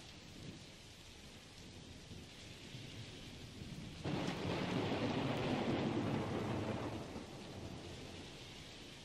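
Thunderstorm: steady rain with a long rumble of thunder that swells about four seconds in and dies away over the next three seconds.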